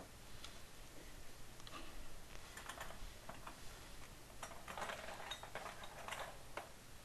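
Faint scattered clicks and short bursts of light metallic clatter, busiest in the middle few seconds: small tools and copper pipe fittings being handled during plumbing work.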